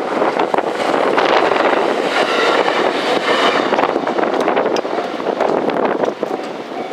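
Ainokaze Toyama Railway 521 series electric train running, a steady rumble of wheels on the rails with wind buffeting the microphone. A cluster of steady higher tones joins the rumble about two seconds in and fades a second and a half later.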